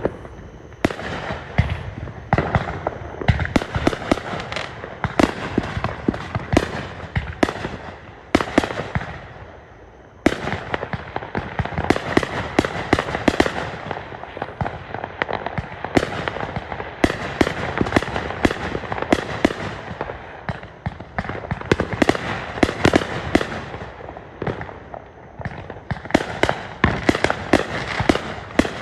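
Fireworks going off in rapid, dense volleys of bangs and crackling, easing briefly about a third of the way in before building back into heavy barrages.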